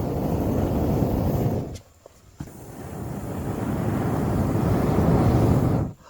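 Wind buffeting the microphone: a steady low rumbling rush that cuts off abruptly about two seconds in and comes back half a second later.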